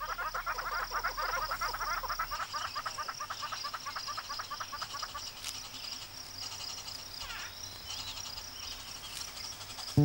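Red-billed hornbill calling in a fast run of clucking notes, about eight to ten a second, which fades out about halfway through, over a steady high-pitched buzz.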